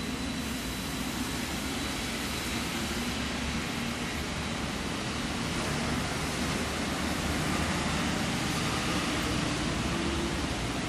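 Taipei Metro Wenhu line rubber-tyred train pulling away along the elevated guideway. A high whine fades early on, leaving a steady rushing noise of the receding train mixed with rain and wet-road traffic.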